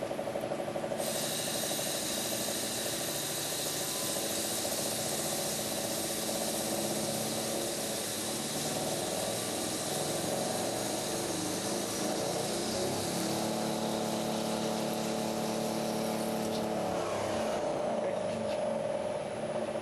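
A lathe running with a steady motor hum. A high hiss starts abruptly about a second in and stops near the end, and the hum shifts pitch partway through.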